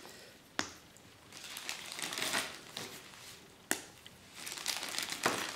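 Pieces of bone-dry clay snapped apart by hand, about three sharp cracks, with soft crinkling between them as the pieces are handled and dropped into a plastic zip-lock bag. The clay is fully dried out and brittle, so it breaks with a crisp snap.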